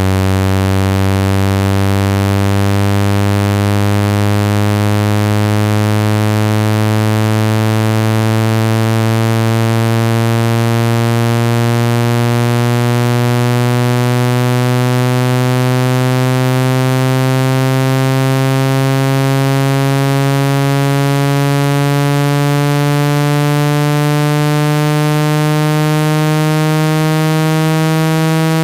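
A low, buzzy electronic tone rising slowly and steadily in pitch, a speaker-cleaning tone meant to vibrate water out of a phone's speaker.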